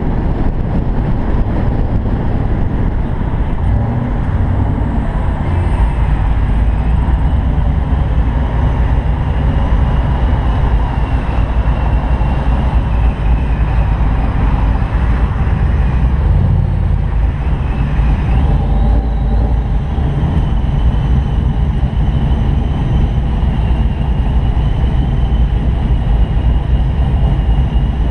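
Steady rush of wind and road noise in an open-top convertible at cruising speed, with a deep rumble of wind on the microphone under the car's running engine and tyres.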